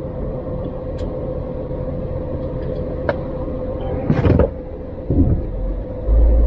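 Semi-truck diesel engine idling, heard from inside the cab, with a steady hum. A couple of sharp clicks sound, a brief rustle about four seconds in, and a heavier low rumble sets in near the end.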